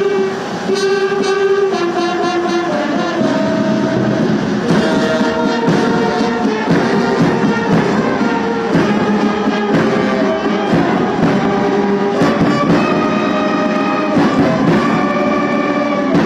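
Military brass band playing a national anthem as a slow melody of held notes.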